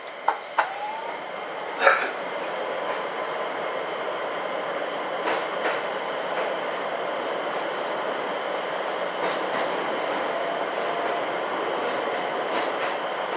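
JR West 227 series electric train car moving off from a station, heard inside the carriage. A few sharp knocks come in the first two seconds along with a brief rising whine, then the running noise steps up and holds steady, with a faint whine and occasional clacks over the rails.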